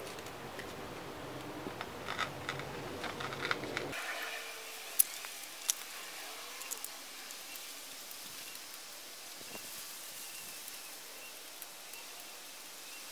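Packaging rustling and crinkling as gloved hands rummage for bagged fish inside a cardboard shipping box, with scattered small clicks and two sharper clicks about five seconds in. The handling grows quieter and sparser after about four seconds.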